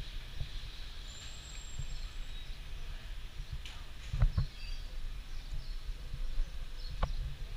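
Outdoor ambience: a low, uneven rumble throughout, with faint high bird chirps and a few short knocks or clicks, the sharpest about four seconds in and near the end.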